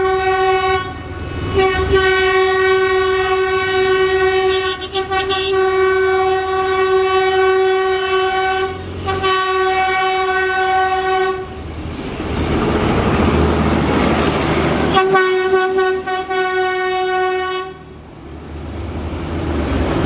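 A loud, steady horn-like tone at one pitch, held for several seconds at a time with short breaks, and in the middle a few seconds of rushing noise.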